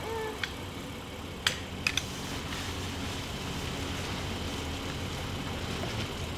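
Steady low hum of an idling engine, with a few short light clicks about a second and a half and two seconds in.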